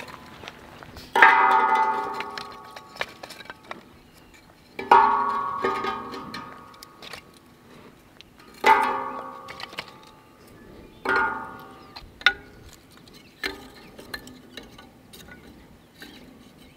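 Split kindling sticks knocking against a stainless-steel Solo Stove Ranger fire pit as they are laid inside, each knock setting the steel body ringing like a bell that fades over a second or two. There are four loud ringing knocks a few seconds apart, then a few lighter taps.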